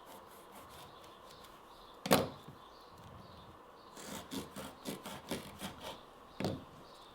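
A Swiss Army pocket knife blade sawing through rope in a quick series of short rasping strokes, about four a second, with one more stroke shortly after. A single sharp knock, the loudest sound, comes about two seconds in, before the cutting.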